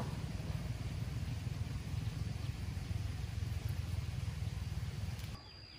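A steady low engine rumble that stops suddenly about five seconds in.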